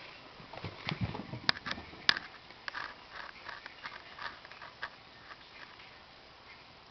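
A cat's paws scampering on a hard floor: soft thumps and sharp claw clicks, loudest about one and a half and two seconds in, then a run of lighter taps that dies away after about five seconds.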